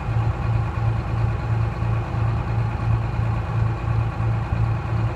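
Detroit Diesel 6V71 two-stroke V6 diesel of a 1970-71 GMC "New Look" bus idling, a steady low drone that pulses about three times a second.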